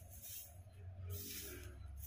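Repeated scraping or rubbing strokes, about two a second, over a steady low hum.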